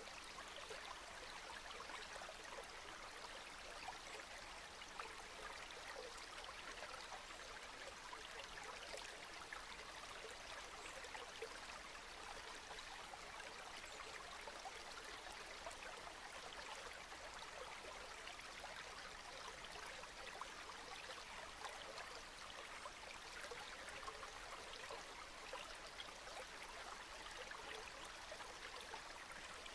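Steady rain falling, a continuous even hiss with a dense patter of small drops.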